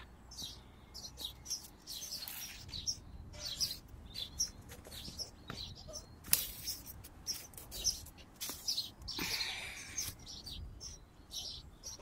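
Small birds chirping in short, scattered calls, with the brushing rustle of tomato leaves and stems as the plants are pushed aside by hand.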